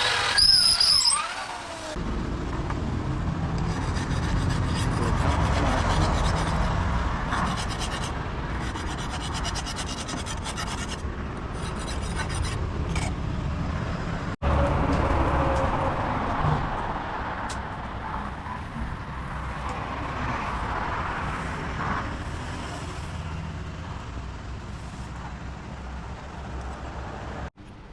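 Steel sickle blade being filed or ground by hand: a continuous rasping, rubbing sound. It breaks off abruptly about halfway, then starts again.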